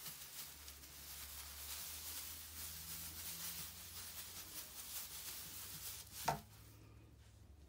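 Faint scratchy rustling as a young puppy scrambles over a terry towel and brushes against a tulle drape, with one sharper knock about six seconds in.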